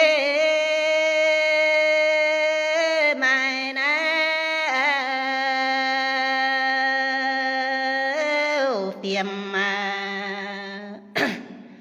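A woman singing a Red Dao hát lượn folk song unaccompanied. She draws out long held notes with a slight waver, the pitch stepping down about three seconds in and again near nine seconds, and the voice tails off near the end.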